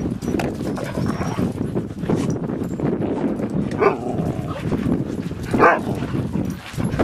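A dog barks twice, short and sharp, about two seconds apart; the second bark is louder. Beneath them runs a steady jumble of low background noise.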